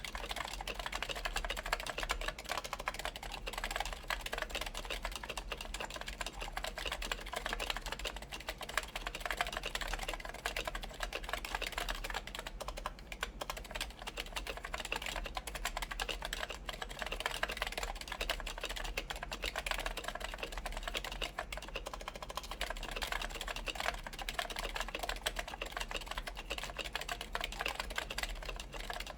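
Continuous fast typing on a Linworks PC Dolphin electro-capacitive keyboard with DynaCap Light Dome switches fitted with silencing rings, DCS keycaps on an aluminium plate: a dense, steady run of soft keystroke clicks.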